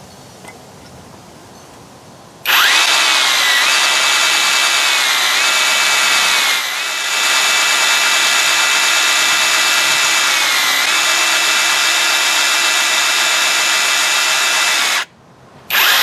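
Avhrit 21-volt cordless hammer drill in rotary-only drill mode, no hammer action, boring into a cinder block: a steady motor whine that starts a couple of seconds in. Its pitch sags slightly a few times under load, and it stops about a second before the end, then starts again briefly.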